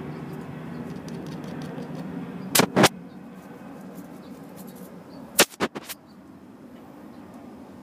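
Plastic cat toy clicking and knocking as the cat bats the ball on its wire track. There are two sharp clicks close together about two and a half seconds in, then a quick cluster of clicks around five and a half seconds in, over a steady low background rumble.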